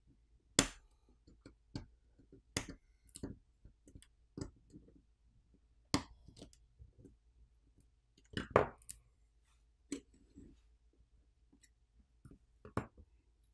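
Scattered clicks and light taps of a metal pry tool working the small plastic covers over the POCO F3 GT's maglev shoulder triggers loose from the phone frame, irregular and a few seconds apart.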